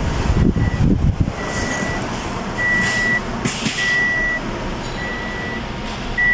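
Toyota Yaris petrol engine being cranked by its starter, a long crank before it runs: the hard-starting fault, later traced to the fuel pump and filter. The pulsing is strongest in the first second or so, then settles into a steady drone. A high beep about half a second long repeats roughly once a second throughout.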